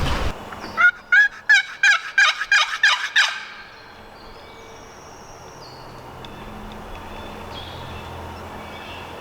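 Wild turkey yelping: a run of about eight loud, evenly spaced yelps lasting about two and a half seconds. Faint high bird chirps follow in the background.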